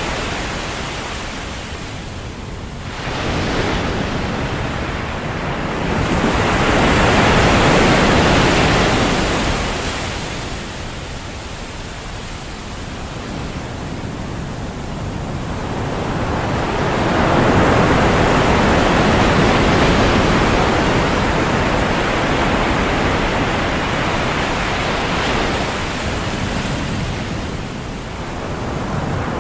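Ocean surf rushing and washing onto a beach, swelling and fading in slow surges several seconds long.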